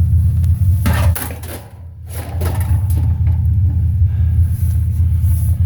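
Steady low rumble, with rustling and a few knocks about a second in; the rumble drops away briefly just before two seconds in, then returns.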